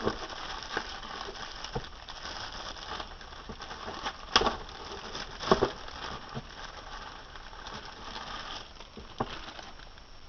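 Packaging rustling and crinkling as a new speaker set is unpacked and handled, with several sharp knocks and clicks, the loudest about four and a half and five and a half seconds in.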